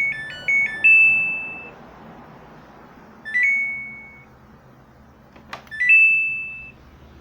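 Samsung washing machine control panel chiming: a quick stepped power-on melody, then two shorter rising chimes about three and six seconds in as its buttons are pressed. A sharp click comes just before the last chime.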